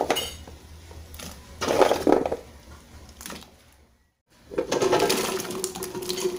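Cut squash pieces dropped into a pot of boiling water, splashing and thudding in several separate bursts, the loudest about two seconds in, then a longer stretch of splashing as more pieces slide in near the end.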